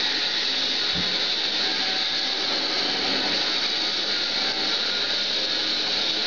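A swing roasting machine running: a steady whirring hiss at an even level.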